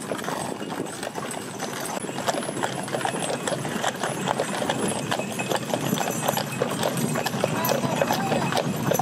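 Draft horses walking while pulling wooden-wheeled farm wagons: a dense run of hoof steps and wagon knocks and rattles, growing somewhat louder toward the end as the teams pass.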